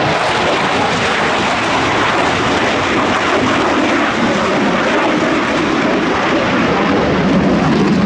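JF-17 Thunder fighter's single RD-93 turbofan, a loud, steady jet noise as the aircraft flies a tight, high-g turn overhead.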